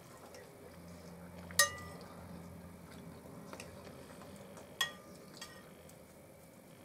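A metal spoon clinks against a ceramic soup plate twice, about a second and a half in and again near five seconds, each time with a short ring. Fainter clicks of cutlery come in between.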